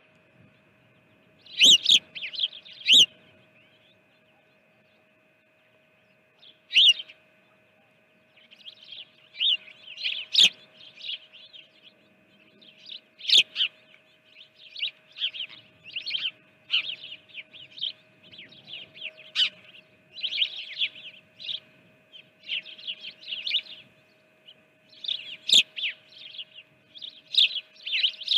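Small songbirds chirping close to the microphone in quick clusters of short calls, falling quiet for a few seconds early on and then chirping almost constantly from about eight seconds in. A faint steady hum runs underneath.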